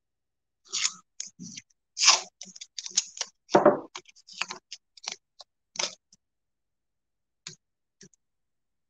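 Masking tape being pulled off the roll, torn and pressed onto a wooden board: a quick run of short rips and scrapes for about five seconds, then two faint ticks near the end.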